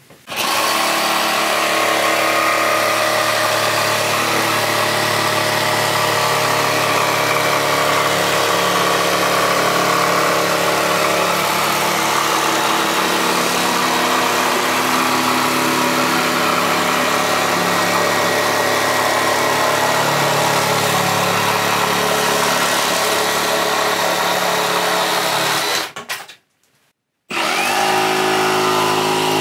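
Milwaukee M18 BJS cordless jigsaw sawing through plywood, a steady motor-and-blade sound that stops about 26 seconds in. After a second of silence, the brushless Milwaukee M18 FUEL FJS jigsaw starts up near the end with a different pitch.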